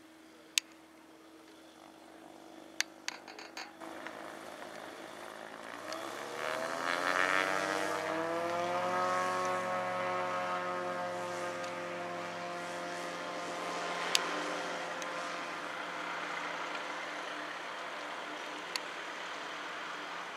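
DynAero MCR-4S light aircraft's engine and propeller going up to full power for take-off. The pitch climbs steeply over a few seconds about a third of the way in, then holds steady as the plane accelerates away and slowly fades. A few sharp clicks stand out.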